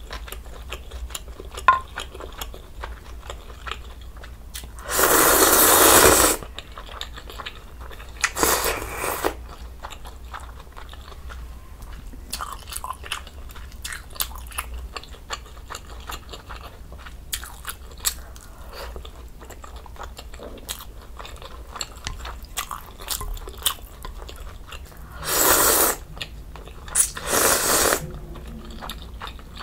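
Close-miked eating sounds: wet chewing and smacking throughout. Four loud slurps of ramen noodles and budae jjigae broth come about five seconds in, around eight seconds, and twice near the end.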